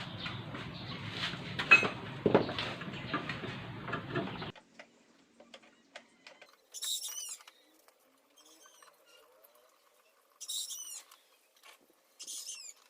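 Hand tools and metal scooter parts clinking and knocking over a steady background hum, which cuts off abruptly about four and a half seconds in. After that come scattered faint clicks and three short bursts of rapid, high chirping.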